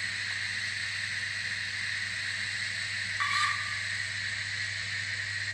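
Sound-fitted Hornby TT:120 model steam locomotive playing a steady steam hiss through its small onboard speaker as it creeps along at low speed, over a steady low hum. A short high tone sounds about three seconds in.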